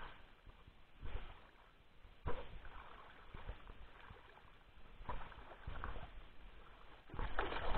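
Shallow seawater splashing and sloshing in separate bursts, about one second, two seconds and five to six seconds in, as a fishing net is worked by hand, with a louder stretch of sloshing near the end.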